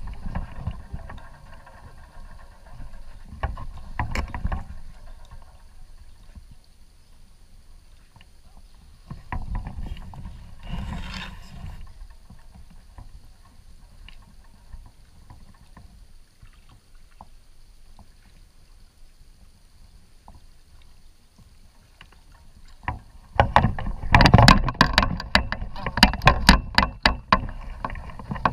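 Kayak paddle strokes: splashing and knocking, with scattered low water sounds early on and a loud, dense run of splashes and knocks over the last five seconds as paddling picks up.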